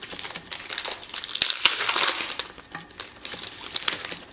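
Crinkling and rustling of trading cards and their foil pack wrapper being handled, with many small clicks. The rustle is loudest from about one to two and a half seconds in and fades to a lighter rustle near the end.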